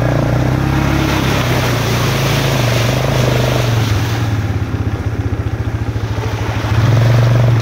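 Suzuki Ozark ATV's single-cylinder engine running under way on a dirt trail, with rushing noise over it. About four seconds in the throttle eases off and the engine note drops to slow, even pulses, then the engine picks up and gets louder near the end.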